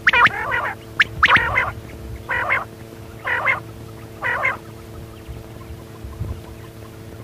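Quail calling: a sharp chirp and then a short burbling note, repeated about once a second for five calls and then stopping a little past halfway. A steady low hum runs underneath.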